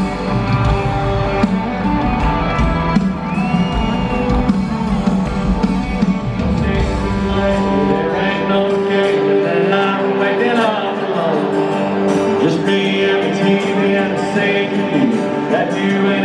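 Live country-rock band playing on stage, with electric and acoustic guitars, drums and a lead singer, heard from the crowd through a phone's microphone. The deep bass drops away about halfway through.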